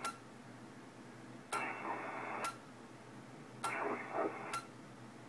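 Kenwood TS-430S HF transceiver switched back and forth between the 6 and 7 MHz bands, with a sharp click at each band change. Twice, receiver hiss with faint signals comes up in its speaker for about a second on 6 MHz. Back on 7 MHz it falls almost silent: the receiver is dead there, the intermittent low-receive fault blamed on its band-switching relays.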